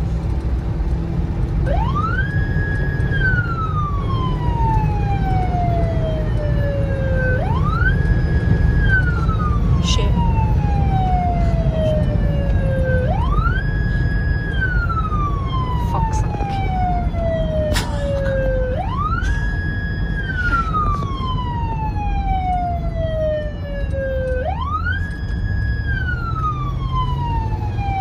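American police car siren on wail: five cycles about six seconds apart, each rising quickly, holding briefly at the top, then falling slowly. Under it runs steady engine and tyre noise, heard from inside a moving car's cabin.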